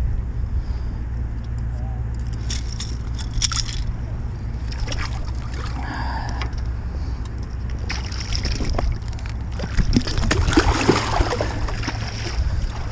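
Water sloshing and splashing in the shallows against the rocks as a landed striped bass is handled at the water's edge, busiest about ten seconds in, over a steady low rumble.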